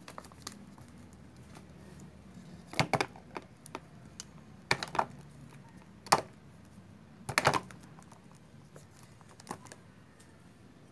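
Hollow plastic surprise eggs clattering and knocking as they are dropped one after another into a cardboard box, in four or five short bursts of clicks.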